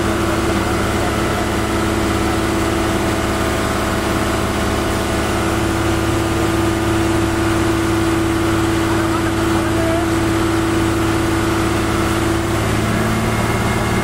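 Crane engine running steadily while the crane holds and swings a steel bridge girder on its hook; the engine's note drops slightly near the end.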